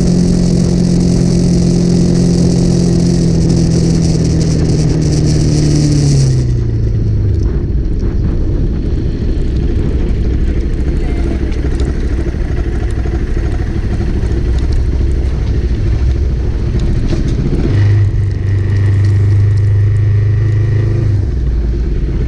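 Motorcycle engine exhausting through a Scorpion aftermarket muffler: revved high and falling back over the first six seconds, then running at low revs, with a steady held rev near the end.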